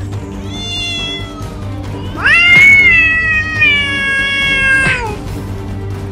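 Background music with a long, high wail over it: it rises sharply about two seconds in, holds for nearly three seconds and falls away at about five seconds. A shorter, fainter high call comes about half a second in.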